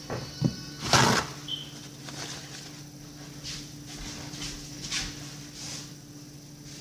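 Kitchen handling sounds: a sharp clatter of utensils or dishes about a second in, then a few light taps, over a steady low hum.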